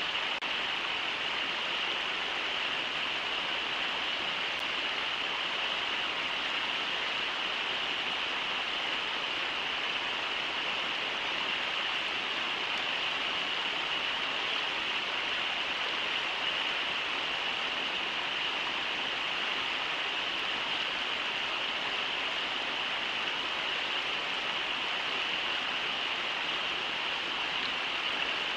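River water rushing over shallow rapids, a steady unbroken rush with a hiss in the upper middle.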